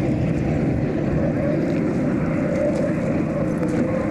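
Unlimited racing hydroplanes running at speed: a steady, heavy engine drone with a faint wavering whine on top.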